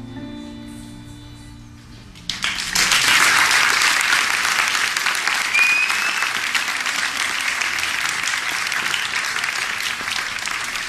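The last sustained notes of a song fade out, then an audience bursts into applause about two seconds in, dense clapping that carries on steadily.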